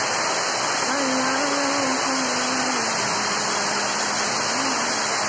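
Steady rushing storm noise, even and unbroken, with faint wavering pitched tones underneath.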